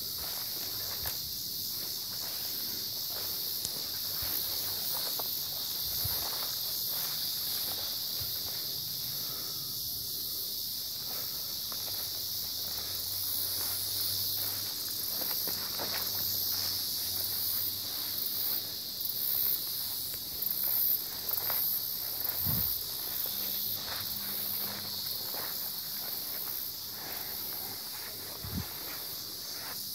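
Steady, high-pitched chorus of insects, with scattered footsteps and rustling as someone walks through tall weeds.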